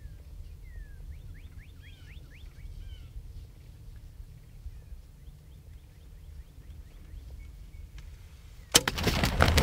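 Faint chirping bird calls over a low wind rumble; about nine seconds in, the sudden loud thump of a recurve bow shot at close range, followed by a rapid flurry of loud thumps and rustling.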